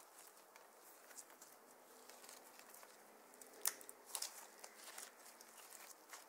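Glittery slime squeezed, folded and stretched by hand, giving a run of small sticky clicks and pops, with the loudest pop a little past halfway.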